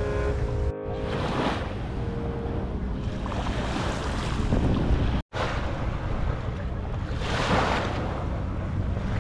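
Small waves washing onto a sandy beach, surging every couple of seconds, with wind buffeting the microphone. The sound breaks off for an instant about five seconds in.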